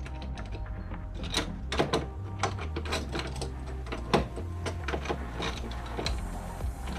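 Scattered clicks and knocks of hands and tools working on boat steering hardware and cable, over a steady low hum.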